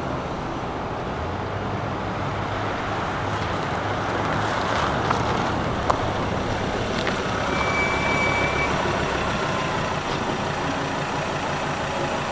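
Ford dual-cab 4x4 ute driving up off the road onto sand and pulling to a stop, its engine a steady low hum over tyre and road noise. The hum drops away about nine and a half seconds in.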